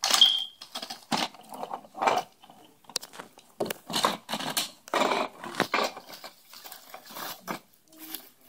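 Crumpled paper, plastic wrappers and small cardboard boxes rustling and crunching as a toy wheel loader is shoved through a pile of play trash, in irregular bursts, some louder than others.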